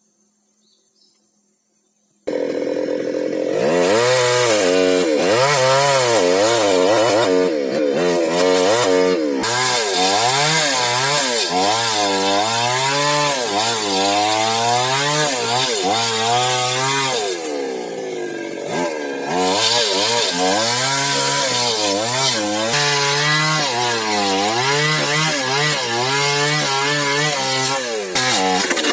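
Chainsaw cutting timber for a wooden boat's frames, starting suddenly about two seconds in. Its engine pitch keeps rising and falling as the chain bogs down in the wood and frees again.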